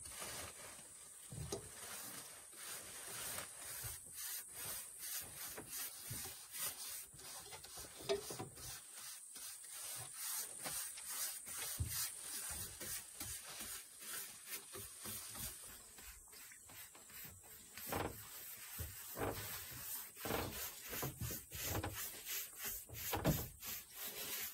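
Flat paintbrushes stroking wood impregnant onto a rough, dry wooden slab tabletop, in a steady run of quick back-and-forth brushing strokes, a few a second.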